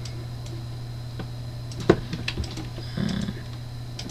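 A few scattered, sharp clicks from a computer keyboard and mouse, the loudest about two seconds in, over a steady low hum.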